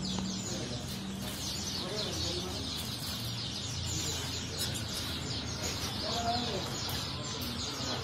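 Many caged songbirds chirping and twittering at once in a dense, high, unbroken chorus.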